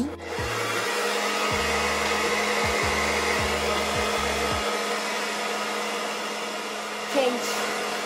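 Mondial Black Rose Turbo hand-held hair dryer switched on just after the start at its first speed setting, then running steadily: a constant rush of blown air over an even motor hum.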